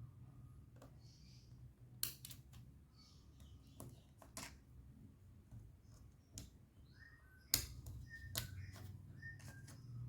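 Faint, scattered clicks and taps of small plastic and metal laptop parts being handled, about half a dozen sharp ones over a low steady hum.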